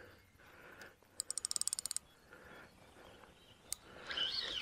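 Fishing reel's drag ticking in a quick run of clicks about a second in, as a hooked fish pulls line off the reel under load. A single click follows later.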